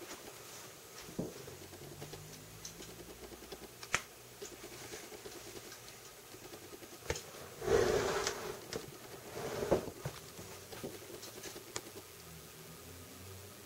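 Scattered light clicks and knocks from handling a plastic rack tub, with a louder rustling scrape about eight seconds in and a shorter one soon after.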